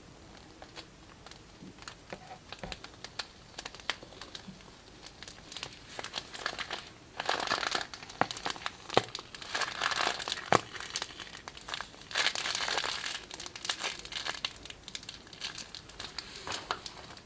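Plastic piping bags crinkling as they are handled and squeezed, with many small sharp clicks and crackles; the crinkling grows louder and denser in the middle stretch.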